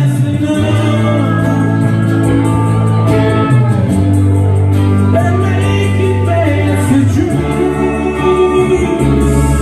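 Rock band playing live in a large hall: strummed acoustic guitar, electric guitar and a sustained bass line, with a male voice singing.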